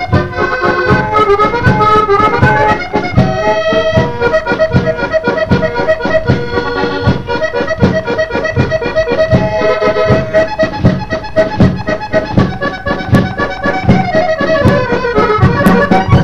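Musette waltz played on accordion with drum kit: the accordion carries the melody over a steady, even drum beat. Near the end a falling accordion run leads toward the final notes.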